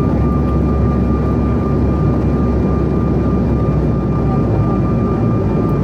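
Steady jet noise inside the cabin of a Bombardier CRJ900, from its rear-mounted General Electric CF34 turbofans: a low, even rumble with a thin steady whine over it.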